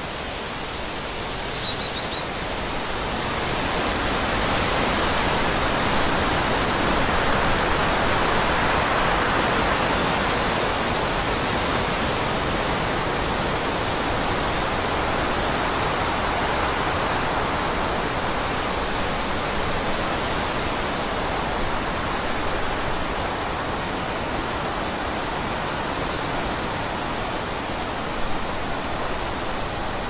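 Forest ambience: a steady rushing noise that swells for several seconds and then eases off a little, with a brief high chirp about two seconds in.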